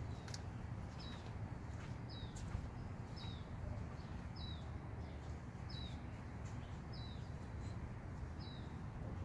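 A bird repeating a short, high, falling chirp about once a second, over a low steady background rumble.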